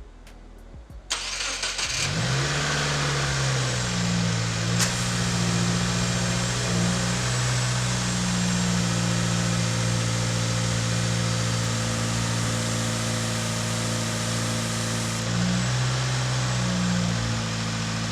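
Subaru WRX's turbocharged flat-four engine cranked on its first start after a fresh oil change: it catches about two seconds in, flares briefly, then settles into a steady idle, running healthily.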